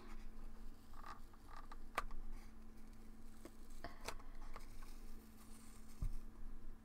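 Fingernails scratching and picking at a paper sticker on a small cardboard box, with faint crinkling and two sharp clicks, and a soft low thump about six seconds in. A faint steady hum runs underneath.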